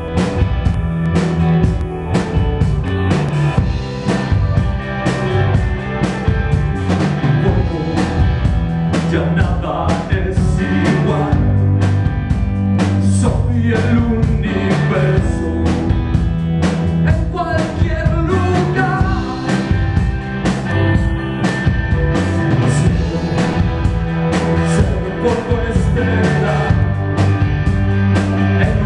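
Rock band playing live, with a steady drum beat, bass and keyboards.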